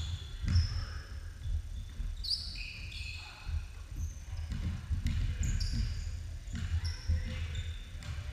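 Basketball bouncing on a hardwood gym floor amid players' running footsteps, with short high squeaks of sneakers on the boards.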